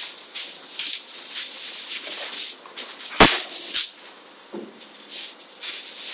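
Irregular rustling, breathy noise with one sharp click about three seconds in and a fainter click shortly after.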